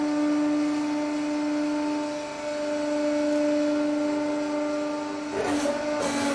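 Hydraulic press running with a steady, pitched hum as its ram comes down into a steel die. About five seconds in, crackling clicks join the hum as the ram meets the pile of loose steel screws and starts to squeeze them.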